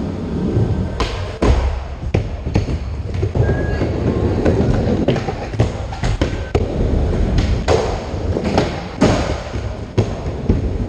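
Skateboard wheels rolling with a continuous low rumble, broken by about ten sharp clacks and thuds of boards hitting and landing on the ramp surface.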